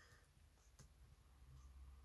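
Near silence: room tone with a faint low hum and one faint click just under a second in.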